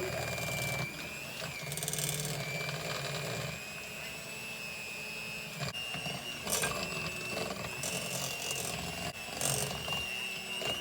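Electric kitchen mixer motor running steadily with a high whine, which steps up a little in pitch a bit past halfway; brief clatters come twice in the second half.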